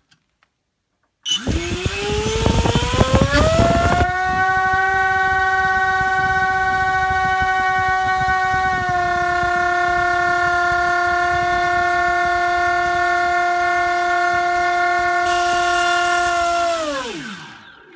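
An FPV Model MC2204 2300kv brushless motor spinning a 5x4 propeller on a 4-cell LiPo, run up to half throttle on a thrust test stand. It starts about a second and a half in with a whine that rises in pitch over a couple of seconds, then holds steady with a loud rush of prop wash, and winds down with a falling pitch near the end.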